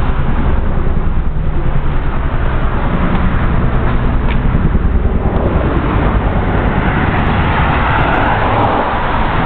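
Road traffic noise with a heavy low rumble; a vehicle passes, its tyre hiss swelling from about halfway and easing near the end.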